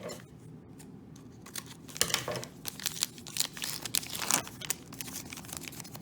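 A trading-card pack's wrapper crinkling and tearing as it is opened and handled, in scattered crackles from about two seconds in.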